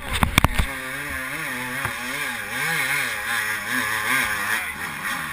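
Dirt bike engine labouring in second gear through a creek crossing, its revs surging up and down about twice a second as it bogs and nearly stalls. A few sharp knocks in the first half second.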